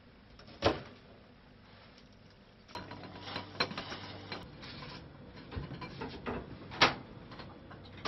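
Kitchen cooking sounds: sharp clinks and knocks of pots, lids, dishes and utensils being handled. A denser run of small clatter starts about three seconds in, and the loudest knock comes near the end.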